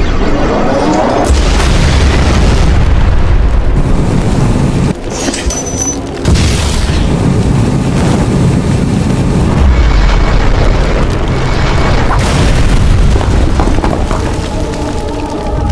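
Dense battle sound effects: repeated deep booms and explosion-like blasts over background music, with a brief drop in loudness about five seconds in.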